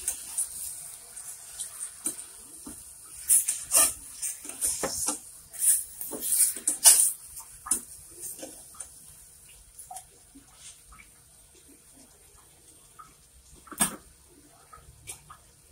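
A spatula stirs whole squid in a stainless steel pot, with quick scrapes, knocks and wet squelches against the pot. These are busy for the first seven seconds or so, then thin to a few scattered knocks, with one sharper knock near the end.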